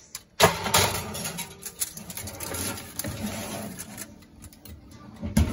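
Foil-covered baking dish being pushed into a countertop toaster oven. The foil crinkles and the dish scrapes and rattles on the oven's wire rack, with a sharp knock near the end.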